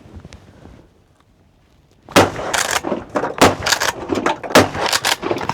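Pump-action 12-gauge shotgun (Mossberg Maverick 88) fired several times in quick succession at incoming ducks, sharp loud reports about a second apart with the pump racked between shots, beginning about two seconds in.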